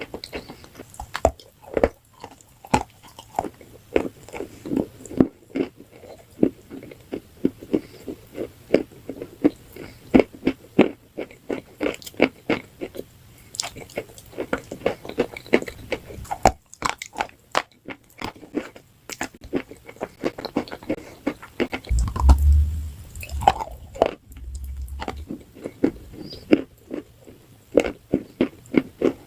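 Close-miked crunching and chewing of hard, dry food: rapid, irregular crisp crunches bite after bite. A few seconds before the end there is a short low rumble.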